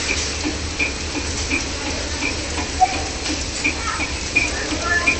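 Skywin automatic wafer-biscuit packing line running: a steady mechanical clatter over a low hum, with a short high tick repeating about every three quarters of a second as the machine cycles.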